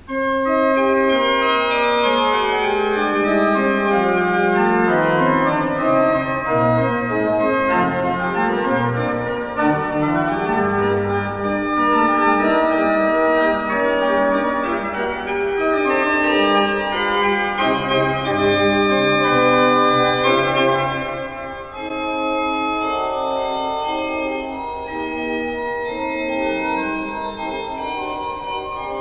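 Church pipe organ playing a multi-voiced piece with held chords. Deep pedal bass notes come in through the middle, and the playing turns softer about three-quarters of the way through.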